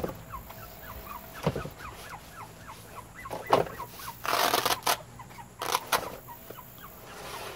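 A bird chirping in quick series of short falling notes, over the handling of cardboard and fabric, with a loud rustle about four and a half seconds in and a few sharp knocks.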